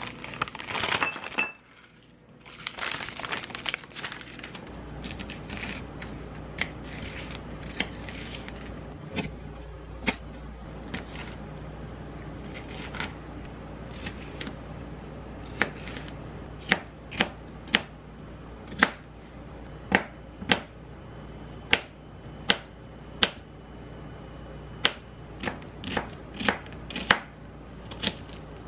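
Chef's knife chopping bell peppers and onion on a plastic cutting board: sharp, irregular knocks of the blade on the board, louder and more frequent in the second half. At the start, a brief rustle as shrimp are tipped from a plastic bag into a bowl.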